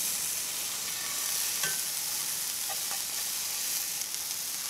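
Scallops searing in a hot cast-iron skillet, a steady sizzle, with a couple of light knocks as they are turned with a metal spatula.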